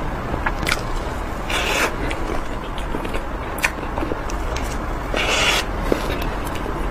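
Close-miked eating sounds of someone chewing chocolate: scattered sharp mouth clicks and smacks, with two short crackling bursts about a second and a half in and about five seconds in.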